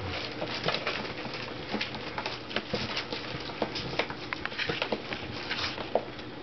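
Puppies pawing and nosing a sheet of heavy plastic inside a cardboard shoebox: a dense, irregular crackle of crinkles and clicks.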